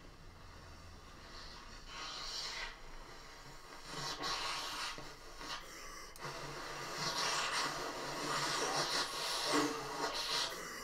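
Alto saxophone played softly on low notes with a very breathy, airy tone, growing louder toward the end.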